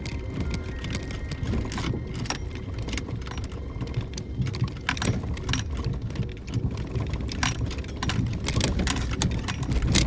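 Inside a Suzuki Jimny JB64 driving over a rough forest road: a steady low rumble of engine and tyres, with frequent clicks and jangling rattles from loose items in the cabin as the car jolts over the surface.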